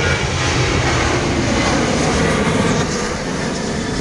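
Jet airliner's engines running loud and steady, a dense rushing noise with a faint whine in it at the start.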